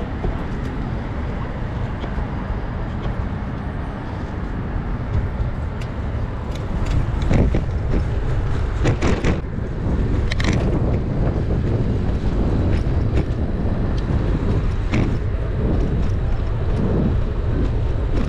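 City street traffic heard while cycling, with steady wind rumble on the action camera's microphone. It gets louder about six seconds in, with a few sharp rattles around the middle.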